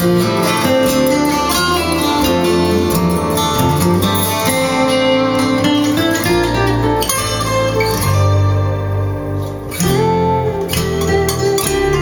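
A song playing through a pair of Bowers & Wilkins 604 S3 floor-standing loudspeakers. It is an instrumental passage with no singing, led by guitar over strong, sustained bass notes, and it briefly drops in level about ten seconds in.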